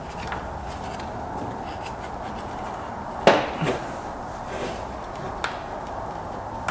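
Hands working in close at an ATV's engine toward the spark plug, giving a few light knocks and clicks. The sharpest comes about three seconds in, over a steady background hiss.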